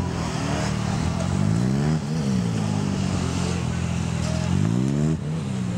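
Suzuki V-Strom 650's V-twin engine in short bursts of throttle. The revs rise and are cut off sharply about two seconds in, then rise and drop again near the end.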